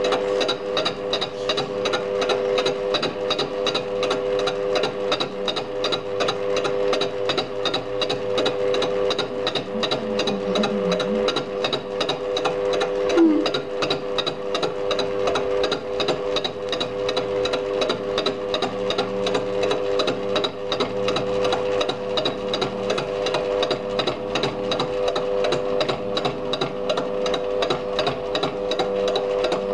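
Lathe fly cutter interrupt-cutting the end face of a cast-iron cylinder: a rapid, even ticking as the cutter strikes the work every turn, over the steady hum of the lathe running. A single louder knock sounds about halfway through.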